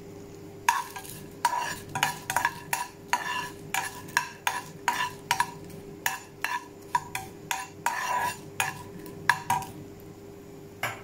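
A metal spoon scraping and tapping across a dry nonstick frying pan, stirring dried red chillies as they dry-roast, about two to three strokes a second, each with a short ring from the pan. The strokes stop near the end, leaving a steady low hum.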